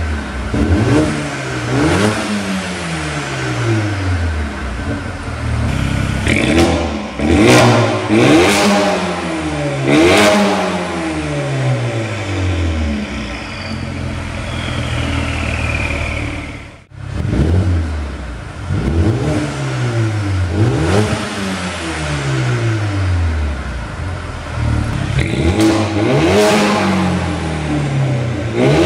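Mercedes-AMG A35's turbocharged 2.0-litre four-cylinder revved again and again in short blips through its exhaust, each rev rising quickly and falling back. A few sharp cracks come with some of the revs.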